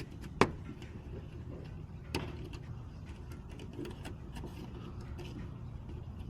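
Small metallic clicks and ticks of an HU101 Lishi pick working a Ford Transit's door lock, with one sharp click about half a second in and another about two seconds in, over a steady low rumble.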